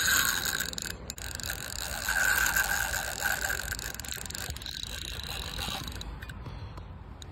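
Penn Slammer spinning reel being cranked, its gears and rotor whirring steadily as line winds onto the spool, until it stops about six seconds in.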